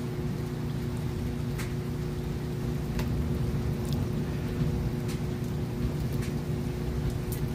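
Steady rain during a night thunderstorm, with scattered sharp drips about once a second over a low, steady hum.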